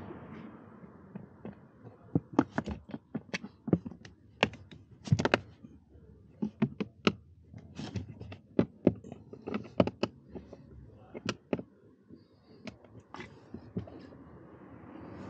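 Screwdriver and hands working at a car's plastic A/C blower motor housing: a run of irregular sharp clicks and taps, some in quick pairs, fading out near the end.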